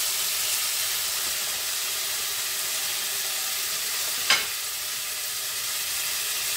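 Pork sizzling as it fries in a pan, a steady hiss, with one sharp knock about four seconds in.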